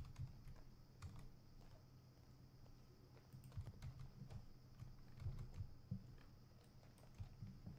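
Faint clicks of a computer keyboard and mouse, a handful of separate key presses scattered through, over a low steady hum.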